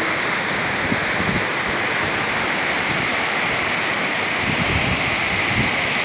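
Tortum Waterfall's water pouring down the rock face: a steady, even rush of falling water.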